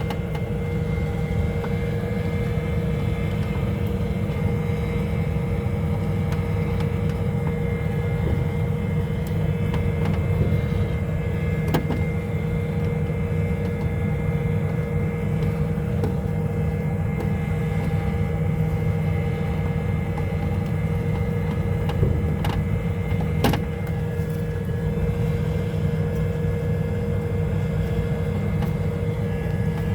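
Running HVAC equipment giving off a steady mechanical hum with a constant tone, with a couple of light clicks from handling parts, one about twelve seconds in and another about twenty-three seconds in.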